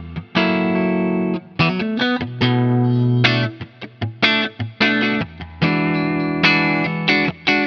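Soloking MT-1 electric guitar with Wilkinson Alnico pickups, played through an amplifier: chords struck and left to ring for about a second each, mixed with a few short stabs and single notes.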